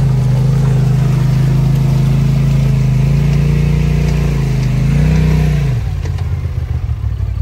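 An engine running hard at steady high revs, rising briefly about five seconds in, then dropping back to a lower, rougher running.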